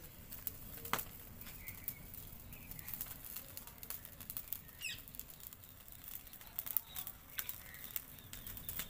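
Small fire of dry stalks crackling, with scattered sharp pops, as a bunch of green chickpea plants is held in the flames to roast. A bird chirps briefly about five seconds in.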